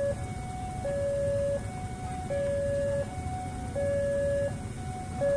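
Railway level-crossing warning alarm sounding its two alternating tones, a lower and a higher note each held for under a second, over the rumble of a passenger train passing the crossing.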